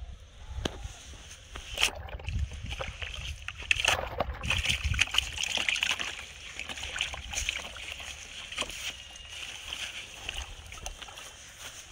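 Live fish thrashing in a plastic tub of water, splashing and sloshing, loudest about four to six seconds in, with scattered sharp knocks.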